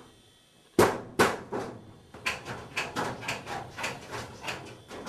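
A sudden sharp strike about a second in, followed by a quick, uneven run of knocks at about three a second, like repeated hammer blows.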